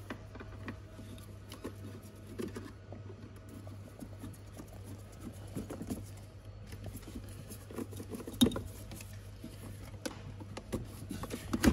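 Small plastic clicks and rattles of electrical sensor connectors being unclipped by hand and worked loose with a screwdriver, with a sharper click about eight and a half seconds in and another near the end.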